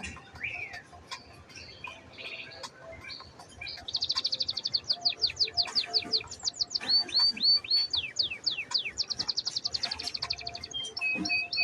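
A songbird singing: after about four seconds of faint scattered chirps, a loud, rapid song of high repeated notes, fast trills and downward-sweeping whistles.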